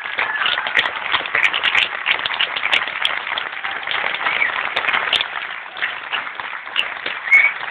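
A theatre audience applauding: dense, steady clapping from many hands.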